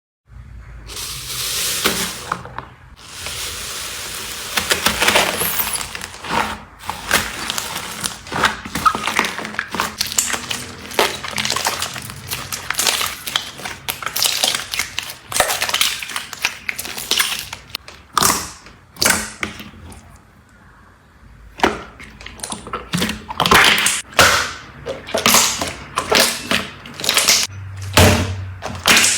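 Slime being squeezed, poked and stretched by hand, giving a rapid, irregular stream of clicks and pops, with a quieter stretch about two-thirds of the way through.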